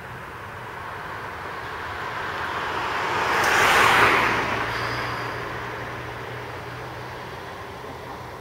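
A vehicle passing close by, its noise swelling to a peak about halfway through and then fading away, with a low hum lingering after the peak.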